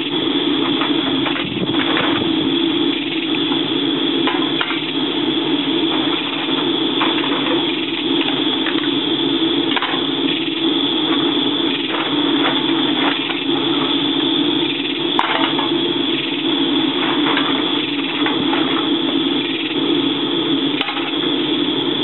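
Air blower running steadily, forcing air into a wood-fired brick furnace melting aluminium cans, with scattered light clicks and knocks.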